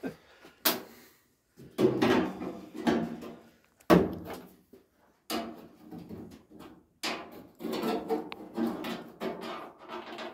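Sheet metal of a Ford Escort Mk1 front wing and bonnet scraping and knocking as a gapping tool is worked into the gap between them. The scrapes come in irregular clusters, with sharp clicks about a second in and a louder knock about four seconds in.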